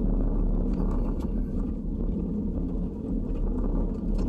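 Steady low rumble of a car driving, its engine and tyres heard from inside the cabin, with a few faint ticks.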